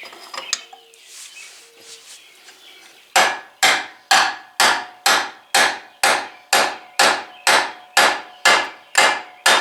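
Hammer striking an aluminum bearing-installer driver after a few seconds of light clinks, then steady blows about two a second, each with a short metallic ring, driving the new wheel hub and bearing home into the steering knuckle. A change in the pitch of the ring is the sign that the part is fully seated.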